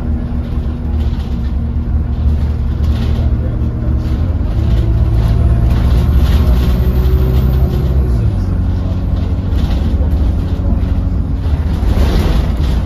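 Alexander Dennis Enviro200 single-decker bus running, heard from inside the passenger saloon: a steady low engine drone whose note steps up about four seconds in and drops abruptly about eight seconds in, with a faint whine above it.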